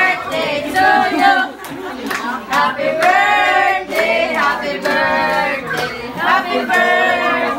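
A group of family members singing together in mixed voices, with drawn-out held notes.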